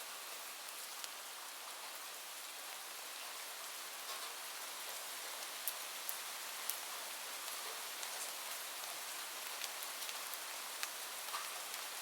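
Steady rain falling, an even hiss with scattered sharp drops striking close by.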